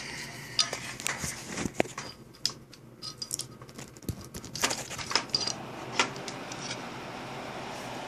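Clicks and light rattles of fan cables and connectors being handled and plugged in, then from about six and a half seconds a steady airy whoosh of a Corsair SP120 High Performance 120 mm fan running at full speed with its voltage reducer removed.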